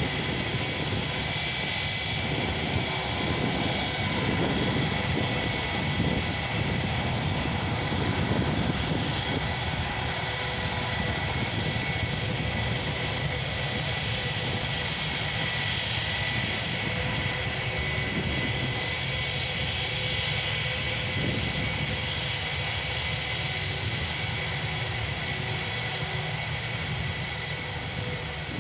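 Airbus A319 airliner's jet engines running at low power as it taxis and turns, a steady roar with a high whine, fading slightly near the end.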